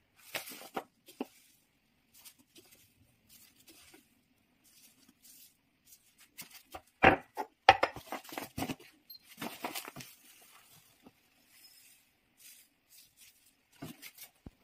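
Kitchen handling sounds: a plastic bag rustling and granulated sugar pouring into a ceramic bowl on a kitchen scale, with sharp clicks and knocks as the bowls are set down and moved. The sounds come in scattered bursts and are busiest in the middle.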